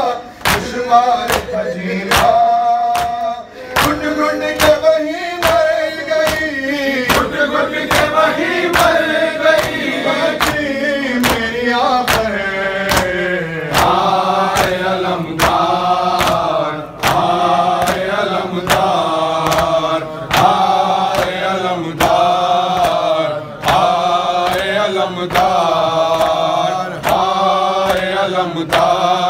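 Male voices chanting a noha, a Shia lament, in unison, over a steady train of evenly spaced sharp beats that keep the rhythm.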